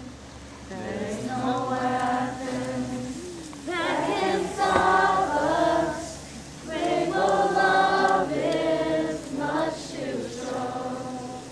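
A group of voices singing a slow song together, in long held phrases with brief breaks between them.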